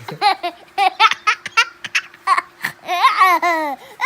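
A young child laughing and vocalising in a run of short, high-pitched bursts.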